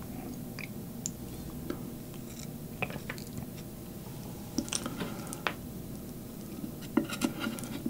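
Chopsticks clicking lightly against a plate in a few scattered taps, in clusters around the middle and near the end, over soft chewing.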